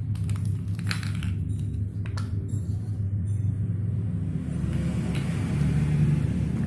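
Plastic toy building blocks clicking as they are pressed together, a few sharp clicks about a second and two seconds in, over a steady low rumble.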